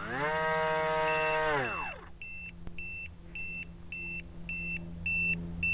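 Small electric motor and pusher propeller of an RC glider run at full throttle as a steady whine, then wind down about two seconds in. Then short electronic beeps follow at about two a second, a warning tone the owner tied to the battery voltage, which he says is good.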